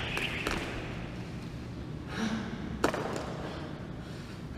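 Last landings of a person's feet from jumping jacks in the first half second, then a heavy breath out from the tired athlete and a single sharp knock just before three seconds in.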